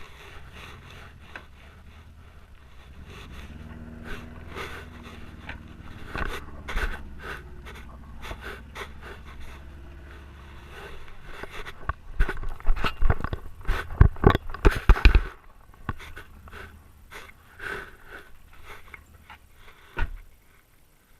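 Great Dane panting close to a camera strapped on its body, with a cluster of loud knocks and scraping as the mount rubs and bumps partway through.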